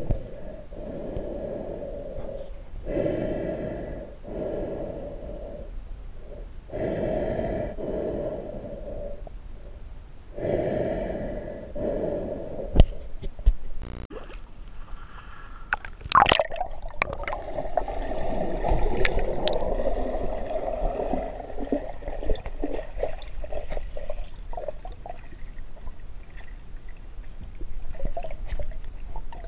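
Muffled underwater water noise picked up through a GoPro's waterproof housing. It comes in surges every three to four seconds at first and then runs more steadily, with a few sharp knocks on the housing around the middle.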